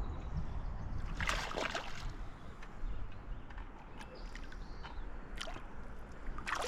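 Water sloshing and lapping around a kayak on a river, with a few brief splashes: a cluster starting about a second in and two more near the end.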